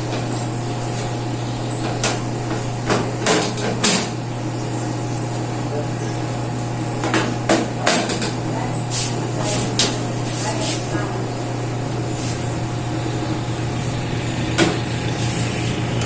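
Scattered knocks and clatter of household objects being moved and handled, in small clusters over a steady low hum.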